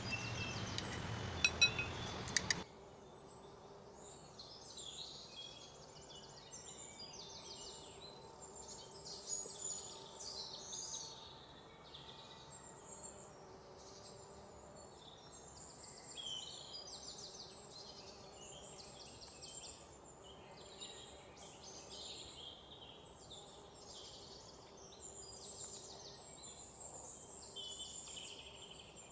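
Small birds chirping and trilling steadily in the background, with many short repeated calls. At the start, a few sharp clicks of a spoon against a ceramic plate over a louder hiss, which cuts off suddenly a couple of seconds in.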